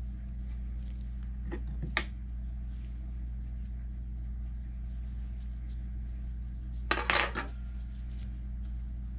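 Hard objects knocking and clattering as cut soap bars are handled at a wooden soap cutter: a single knock about two seconds in and a short clatter about seven seconds in, over a steady low hum.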